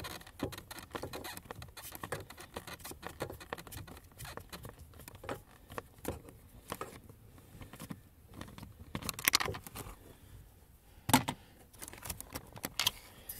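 Close, dense scratching and rustling with scattered light clicks, from hands moving over plastic trim and foam right next to the microphone while working in a cramped space; two sharper knocks about nine and eleven seconds in.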